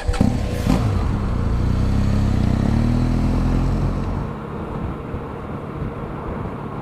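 Motorcycle engine under acceleration, its note rising, with wind rushing past. About four seconds in the engine note drops away, leaving steady wind and road noise.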